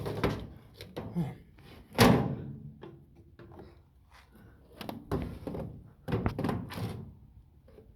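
A loud, sharp thunk about two seconds in, followed by several softer knocks and clatters of something being handled.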